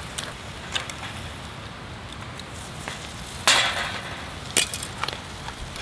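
Scallops in their shells cooking on a small charcoal grill: a steady sizzle and crackle, with a sudden loud crack about three and a half seconds in and a sharp click about a second later.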